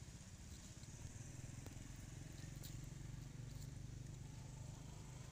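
A low, steady hum, like a distant motor running, with a few faint clicks.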